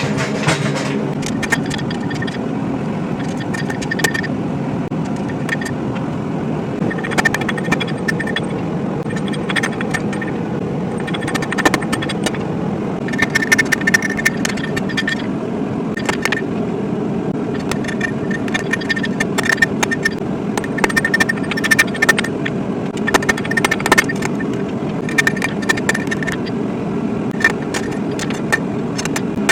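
Steady roar of a lit blacksmith's forge, with irregular metallic strikes and clinks that ring briefly: steel being struck and handled on the anvil.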